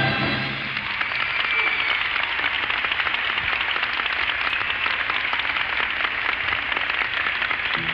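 A large concert audience applauding, after the band's final chord cuts off in the first half second; the band starts playing again right at the end.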